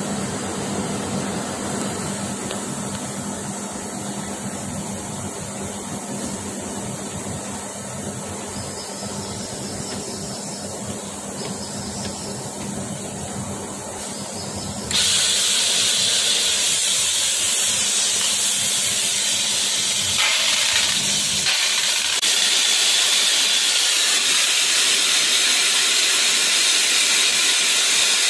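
Metal spray gun hissing steadily as it sprays stainless steel onto a lathe-mounted impeller shaft. About halfway in, the hiss jumps suddenly louder and sharper.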